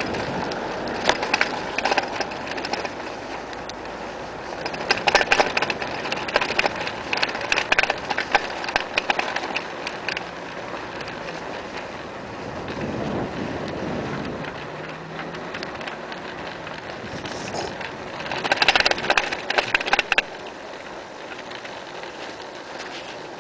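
Bicycle rattling and clicking as it rolls over a rough, patched asphalt path, in bouts of dense rattle over a steady rush of wind and tyre noise.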